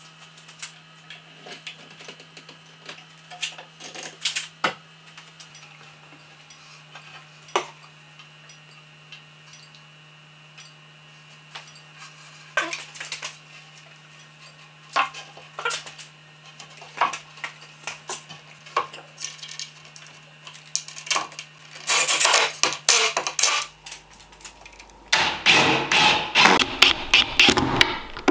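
Wooden table parts knocked and set against each other while a table frame is assembled: irregular single clacks and taps. A denser, louder run of rapid clicks and knocks comes near the end.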